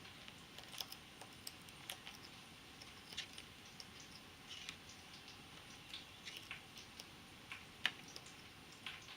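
Amazon parrot crunching a brussels sprout with its beak: faint, irregular small crunches and clicks, with one sharper click about eight seconds in.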